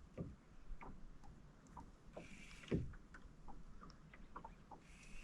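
Light splashing and small knocks and ticks around a small boat, with a short rushing splash about two seconds in and another near the end.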